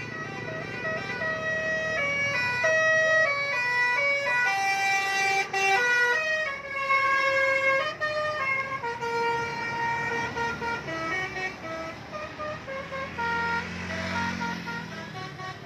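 Bus telolet horn, a set of musical air horns on an Indonesian bus, playing a tune of held notes that step up and down, often several at once. A low engine rumble swells near the end.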